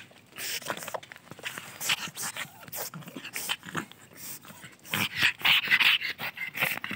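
Small dog making short, irregular vocal and breathing sounds at close range as it scrambles over a person's lap, mixed with its fur and the person's clothing rubbing against the phone; a louder run of sounds about five seconds in.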